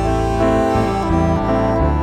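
Background music: a gentle piano-led instrumental with sustained notes.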